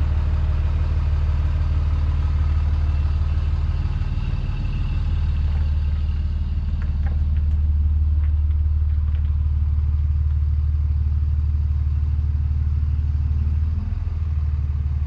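A nearby engine idling steadily with a deep, even hum.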